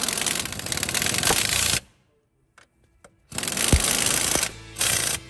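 Cordless impact wrench hammering on engine mount bracket bolts in three bursts: a long one of nearly two seconds, a second of about a second after a short silent break, and a brief one near the end.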